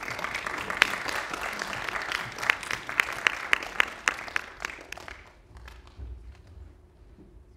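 Audience applauding in a hall, dying away about five seconds in, with a few loud, evenly spaced claps standing out near the end.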